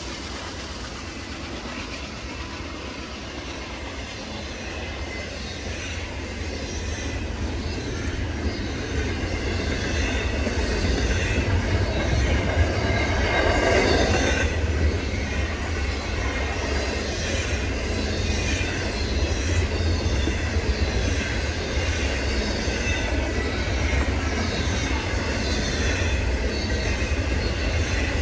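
Double-stack intermodal freight train rolling past, its container-laden well cars making a steady rumble with wheel clatter on the rails. It grows louder towards the middle.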